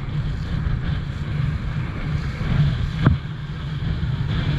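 Boat running at speed: wind buffeting the microphone over water rushing along the hull, with one sharp thump about three seconds in.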